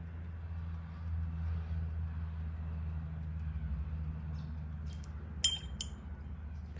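Two sharp clinks a third of a second apart near the end, a wet paintbrush knocked against its water jar, over a steady low hum.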